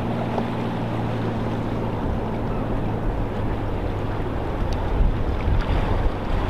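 Low, steady engine hum from a passing vessel over a wash of water and wind; the hum fades during the first few seconds. Wind buffets the microphone in low rumbling gusts that grow stronger near the end.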